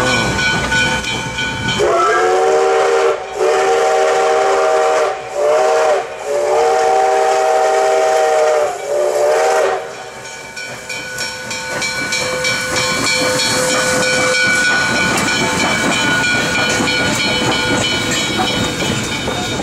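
Steam locomotive's chime whistle blowing a multi-note chord in about five blasts over several seconds, then a steady hiss of steam as the engine runs past.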